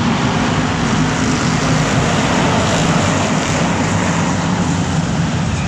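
Several BriSCA Formula 1 stock cars' V8 engines running loud and steady as the cars lap the arena.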